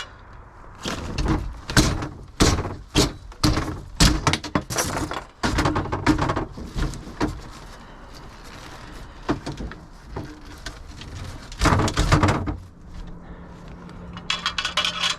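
Repeated knocks, thuds and metal clanks of wooden drawers and their metal drawer slides being yanked and banged about in a scrap dumpster. They are dense for the first six seconds, come again as a loud cluster about twelve seconds in, and end in a light rattle.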